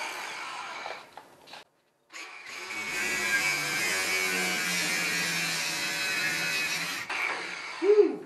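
Cordless drill-driver running steadily for about five seconds, backing a screw out of an aluminum-sheet and square-tubing frame.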